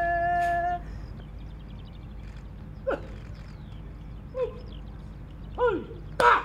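A long, steady held call that stops about a second in, then four short cries that each drop sharply in pitch, the last one the loudest, voiced during a Māori wero challenge as the leaf token is laid down and taken up.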